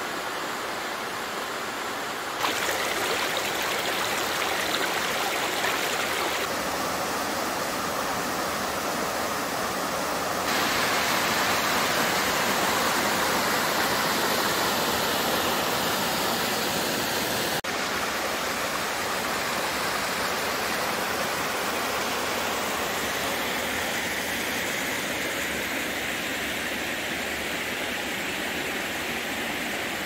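Waterfall rushing steadily, a constant wash of falling water. Its loudness and tone change abruptly a few times.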